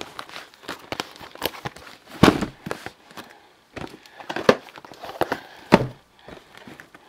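Shrink-wrapped cardboard trading-card boxes being handled and set down on a table: a series of dull knocks, the loudest a little after two seconds in and again at about four and a half and six seconds, with lighter handling noise between.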